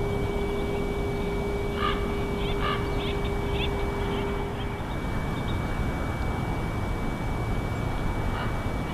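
A bird gives a short run of high chirping calls a couple of seconds in, over steady wind-like noise. A constant thin hum runs throughout, and a lower hum cuts off about halfway.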